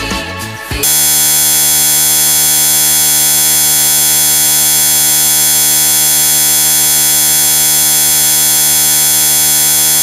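Music cuts off about a second in, and a loud, steady electronic buzz with many evenly spaced overtones takes over, unchanging in pitch and level.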